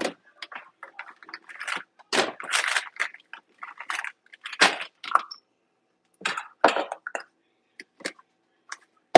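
Small kitchen utensils clinking and rattling as they are handled and dropped into a plastic basket: a string of irregular short clatters with brief pauses between them.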